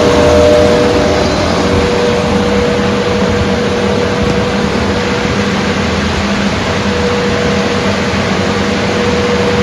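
Steady whir of an electric fan motor blowing air, with a constant hum and no change in speed.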